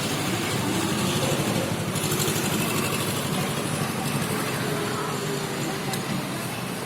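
Steady background traffic noise, an even hum and rush with no distinct events.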